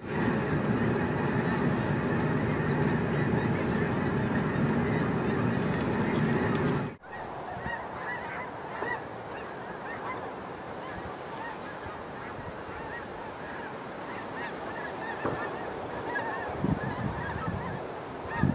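A large flock of snow geese calling, a dense, continuous chorus of honks with a low rumble underneath. About seven seconds in the sound cuts abruptly to a quieter stretch of the flock, where separate high honks stand out.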